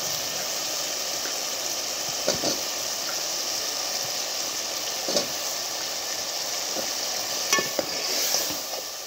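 Onion, tomato and chilli masala frying in oil in an aluminium pot, a steady sizzle, as raw potato cubes are added and stirred in with a metal ladle. A few soft knocks, about two, five and seven and a half seconds in.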